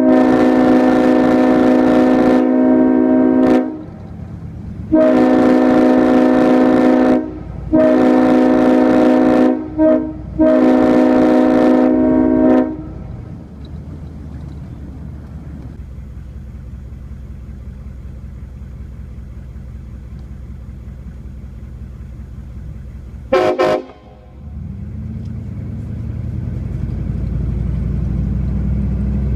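Locomotive air horn sounding a string of loud chord blasts, mostly long, with a short one near the end of the string. After the horn stops, a train rumbles low and steady; a very brief horn toot comes about 23 seconds in, and the rumble builds toward the end.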